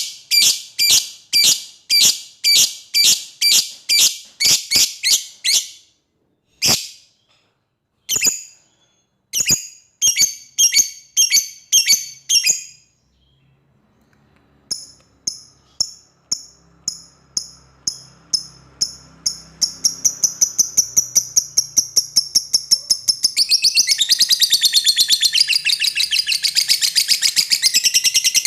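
Lovebird giving its long "ngekek" chattering call, a call to a rival: runs of sharp, high chirps about three a second, broken by short pauses, that then speed up until, about two-thirds of the way in, they run together into a fast, unbroken trill.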